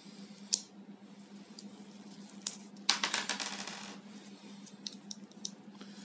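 Small metal clicks from a Victorinox Picknicker pocket knife being handled. About three seconds in comes a quick rattling run of clicks that fades over about a second, with a few lighter ticks near the end.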